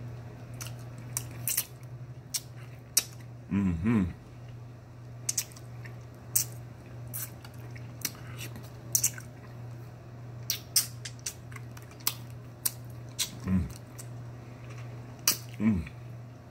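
A person eating close to the microphone: wet mouth clicks and smacks of chewing scattered throughout, with a few short hums of enjoyment.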